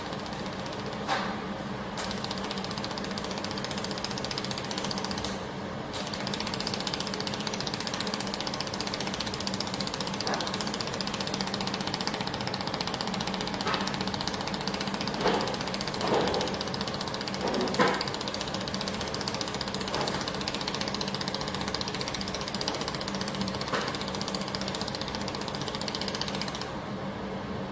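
Automatic fiber laser welding machine running through its programmed weld path: a steady machine hum and hiss, with a few light clicks and knocks now and then.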